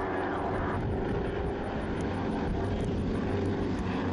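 North American AT-6 Texan aerobatic planes flying in formation, their nine-cylinder radial engines giving a steady drone.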